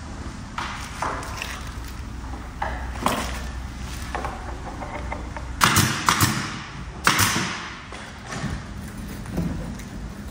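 Workshop handling noises: scattered knocks and bumps, with two louder, harsher noisy bursts about six and seven seconds in.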